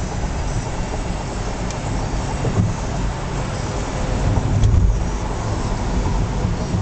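Steady road noise of a car driving at highway speed, a low rumble of tyres and engine with wind hiss, swelling briefly a little past the middle.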